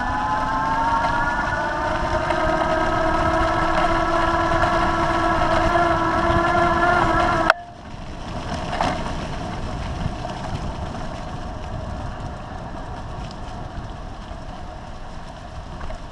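Electric bicycle motor whining, its pitch rising slowly as the bike gathers speed, then cutting off suddenly with a click about halfway through. After that only tyres rolling over dry leaves and wind noise.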